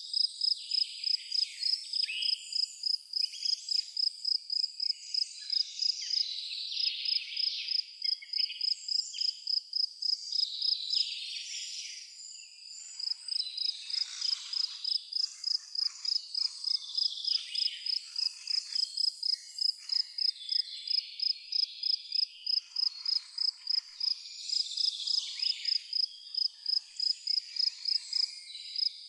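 A cricket chirping in an even, fast rhythm of about three chirps a second, breaking off briefly near the middle, with birds calling in the background.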